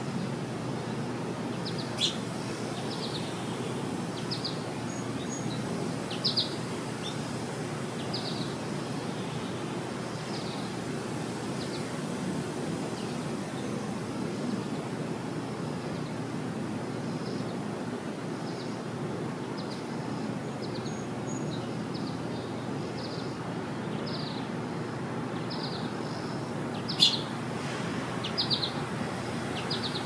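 Small songbirds chirping: short high chirps repeated every second or so over a steady low outdoor rumble, with two sharp clicks, about two seconds in and near the end.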